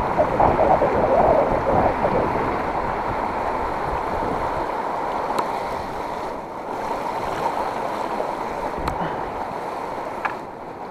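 Steady rush of flowing river water, a little louder for the first couple of seconds.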